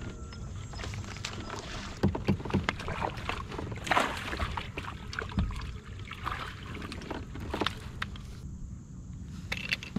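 Irregular knocks and clicks of handling on a fishing kayak, over a steady low rush of wind and water. The louder knocks bunch between about two and four seconds in.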